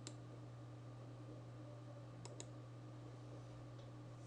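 Faint clicks of someone working a computer while copying text: one click at the start and a quick pair a little over two seconds in, over a steady low electrical hum.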